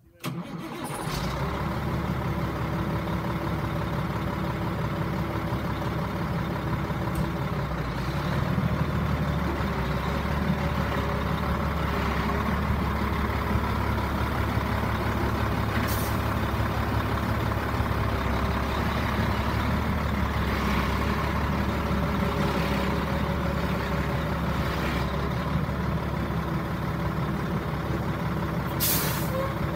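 Freightliner water truck's diesel engine idling steadily, with a short hiss of air about halfway through and another near the end.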